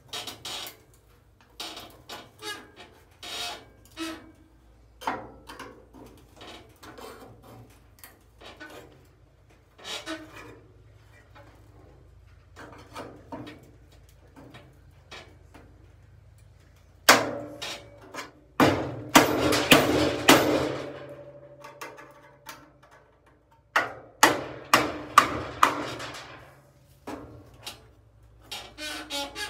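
A screwdriver used as a chisel, driven with a hammer into the sheet-metal cowl seam of a 1952 Chevrolet Advanced Design pickup to cut and pry the panel free. Scattered light taps and metal scrapes give way, a little over halfway through, to bursts of quick, loud hammer blows, about three a second, which come back near the end.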